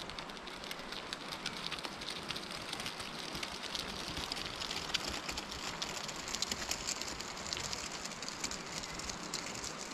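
Two-way zipper being drawn slowly along the fabric of a folding hand wagon to open its footwell extension: a long run of fine, rapid ticks with fabric rustling.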